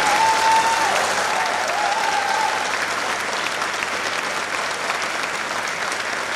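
Audience applauding steadily, with a high voice held over the clapping for the first two or three seconds.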